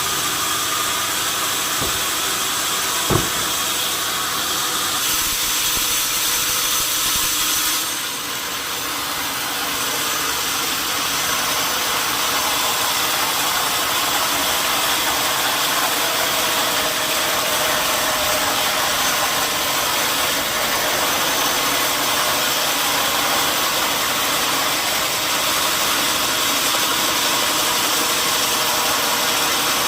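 Sawmill machinery running steadily, a dense even mechanical noise, with one sharp knock about three seconds in.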